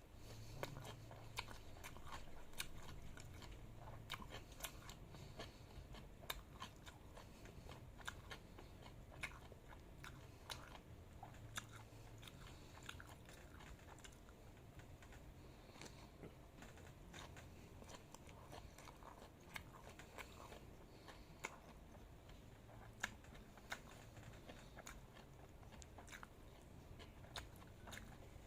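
A person chewing and biting food close to the microphone: faint, irregular mouth clicks and bites throughout, over a low steady hum.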